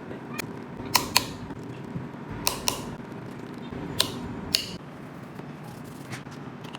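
Torque screwdriver clicking on the small screws of an iPhone 7 Plus's internal protective cover: three pairs of sharp clicks about a second and a half apart, then a few fainter ticks. The click is the sign that the screw has reached the driver's set torque.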